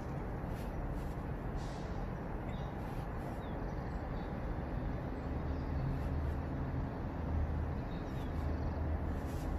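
A hummingbird giving a few faint, short high chirps over a steady low rumble.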